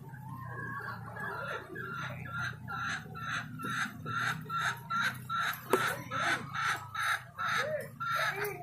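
A bird calling over and over in short calls, about three a second, growing louder through the middle, with one sharp click about six seconds in.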